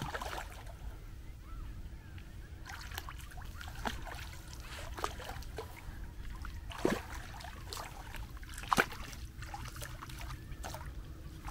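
Small splashes and sloshing of water in the shallows as a hooked carp is played at the bank. There are two louder splashes, about seven and about nine seconds in.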